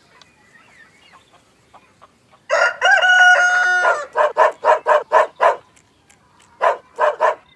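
Rooster crowing, one held call starting about two and a half seconds in, followed by a quick run of short clucking calls, a pause, and three more short clucks near the end.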